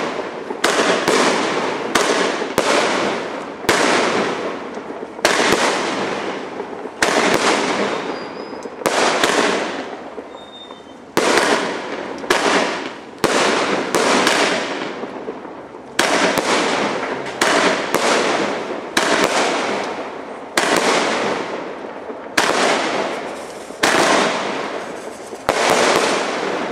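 Aerial fireworks bursting overhead in quick succession, about one loud bang a second. Each bang trails off before the next.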